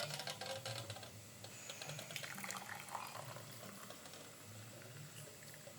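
Hot ginger-and-lime jamu being poured into a glass: a faint trickle and splash of liquid filling it.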